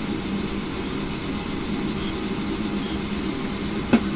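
An old boiler's single-speed fan running with a steady hum, not triggering the air pressure switch, which is probably why the boiler is not firing. A single sharp click comes near the end.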